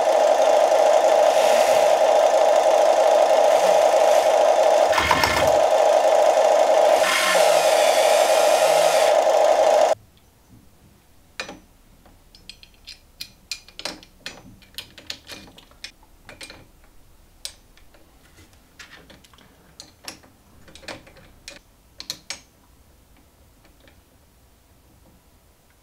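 Huina FM 1580 full-metal RC excavator running with its electric drive, a loud, steady buzzing drone that cuts off suddenly about ten seconds in. After that come scattered small, sharp clicks as the metal grapple attachment is handled.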